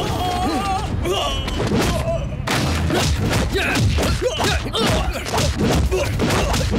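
Fight-scene sound effects: a rapid run of punch, kick and body-blow impacts and thuds, mixed with men shouting and grunting.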